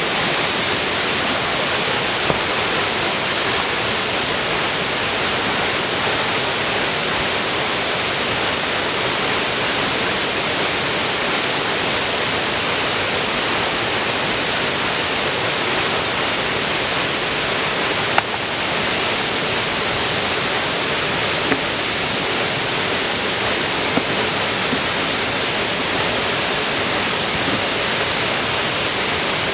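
Steady rush of a waterfall, an even hiss of falling water, with a few brief faint clicks, the clearest about two-thirds of the way in.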